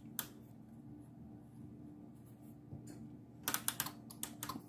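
A faint steady hum with a single click near the start, then a quick run of light clicks and taps about three and a half seconds in.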